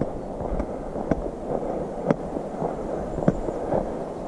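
Footsteps of a person walking on a forest path: irregular crunches or clicks about every half second to a second, over a steady low rustle and rumble picked up by a head-mounted action camera's microphone.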